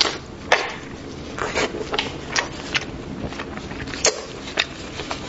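Plastic-gloved hands handling and pulling at a cooked sheep head: scattered sharp clicks and crackles of the gloves and wet meat, about a dozen over a few seconds.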